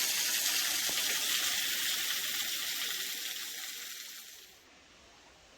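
Small waterfall splashing with a steady rush of falling water, which fades and then cuts off about four and a half seconds in.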